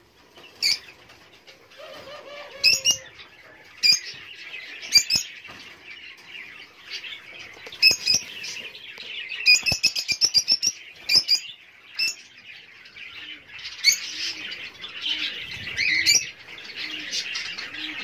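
Budgerigars chirping with short, sharp calls, including a fast run of chirps about ten seconds in, over rustling of straw being pushed into their cage.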